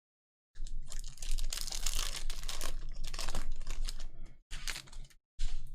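A trading-card pack's wrapper torn open and crinkled, with the cards inside being handled: a dense crackling rustle for about four seconds, then two shorter bursts.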